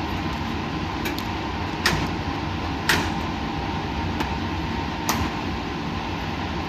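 Steady hum and rush of lab equipment and ventilation, with several short sharp clicks, the loudest about two and three seconds in.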